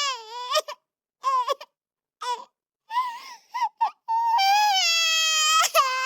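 High-pitched crying voice: a wail, then a string of short, broken sobs, then one long wavering wail from about four seconds in.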